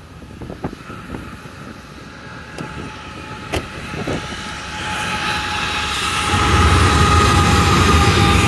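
Norfolk Southern freight train passing, its diesel locomotives and cars building from a distant rumble to a loud, steady rumble about six seconds in, with a thin steady whine over it. A few sharp clicks sound in the first four seconds.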